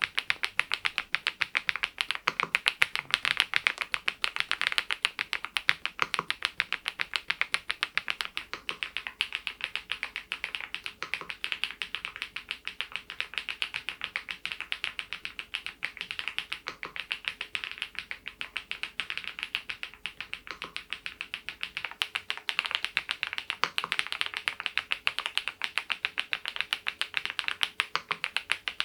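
Continuous typing on a Geekstar GKG87R tenkeyless mechanical keyboard: sharp key clicks following each other several times a second, without a break.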